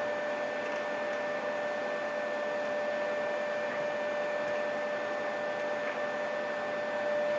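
A 3D printer running: a steady whirring noise with a constant whine, and a few faint light ticks.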